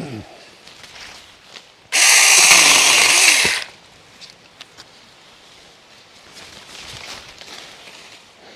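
Saker mini cordless electric chainsaw running in one burst of about a second and a half, starting about two seconds in, its chain cutting through a small branch.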